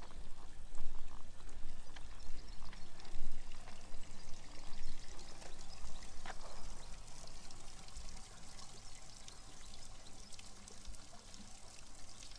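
Water of a small stream running and splashing over stones, growing gradually quieter.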